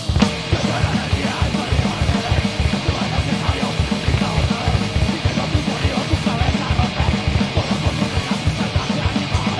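Heavy metal band playing live: drum kit with rapid, driving kick-drum strokes under electric guitar and bass.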